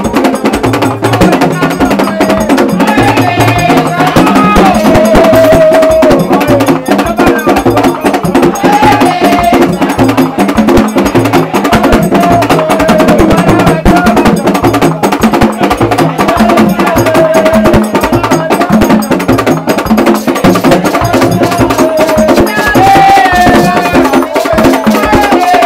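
Haitian Vodou drum ensemble playing a steady, driving rhythm on tall barrel drums, some struck with sticks, giving a sharp clacking beat, with voices singing over the drums.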